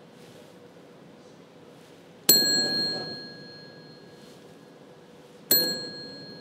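Desk call bell struck twice, about three seconds apart, each ding ringing on and fading: rung as the cue in a follow-me routine.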